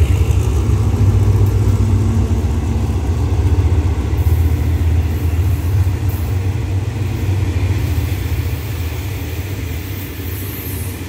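SRT diesel locomotive 4540's engine running with a steady low drone as its train of coaches rolls past, growing slightly quieter toward the end.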